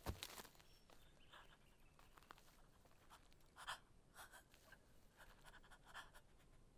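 Near silence, broken by a handful of faint, short scratchy rustles about a second apart.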